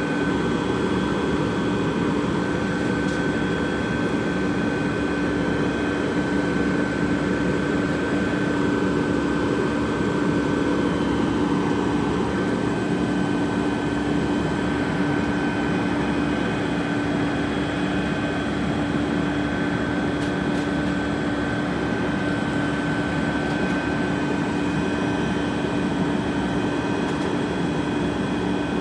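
Rear-loader garbage truck running steadily, a constant whine held over the engine's rumble.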